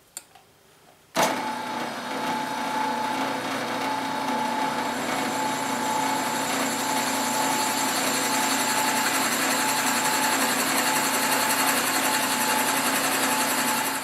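Drill press switched on about a second in, its motor running steadily while a 7/16-inch twist bit bores into the end of a 1-inch wooden dowel; the sound stops near the end.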